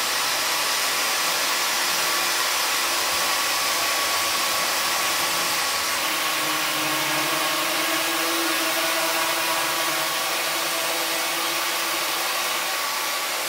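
Angle grinder running steadily with a disc made of folded paper, grinding into a coconut shell; its pitch drops slightly about six seconds in.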